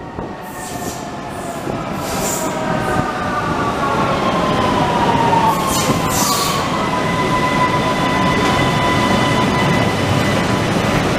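Vienna U-Bahn train braking into an underground station, growing louder as it draws in. Its whine glides down in pitch as it slows, then holds a steady pitch as it comes to a stop, over the rumble of the wheels.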